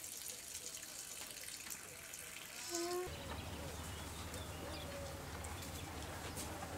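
Alpacas humming faintly: a few short hums, the clearest just before three seconds in, over a light hiss. A low steady rumble starts about three seconds in.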